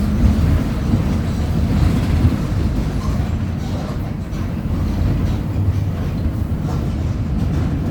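Mercedes-Benz OF 1722M bus running: a dense, loud low rumble of engine, drivetrain and road, with no steady whine standing out in this stretch.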